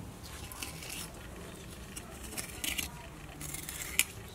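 Large kitchen knife slicing a snakehead fish's flesh away from the backbone, several short scraping strokes with a sharp tick near the end.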